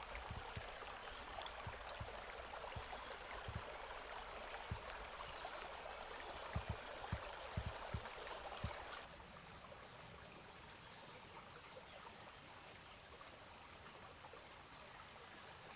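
Faint, steady rushing of flowing stream water, with soft low thumps scattered through the first nine seconds; about nine seconds in the sound drops to a lower level.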